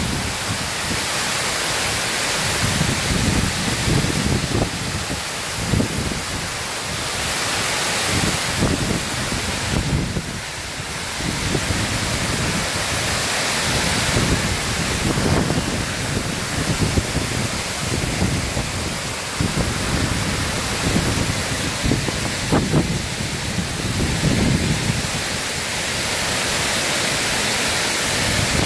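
Water pouring over a dam spillway and crashing into the pool below, a steady, even rush of falling water, with uneven low buffeting from wind on the microphone.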